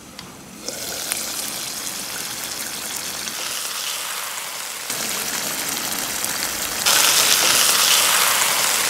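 Baby jackfruit curry in a thick coconut paste simmering in the pot, a steady bubbling and sizzling hiss that gets louder in two sudden steps, about five and seven seconds in.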